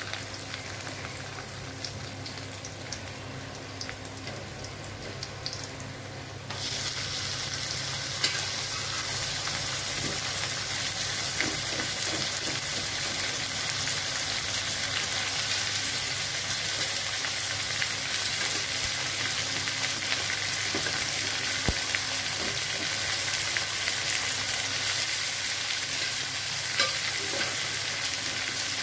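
Hot oil sizzling in a wok around a tempering of dried red chillies, curry leaves and garlic. About six and a half seconds in, the sizzle suddenly gets louder and brighter as boiled horsegram goes into the hot oil, and it stays at that level with a few faint clicks.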